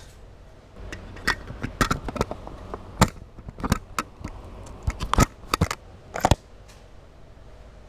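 Handling noise on an action camera as it is moved and tipped back: a string of sharp clicks and knocks with low rubbing and bumping, stopping about six and a half seconds in.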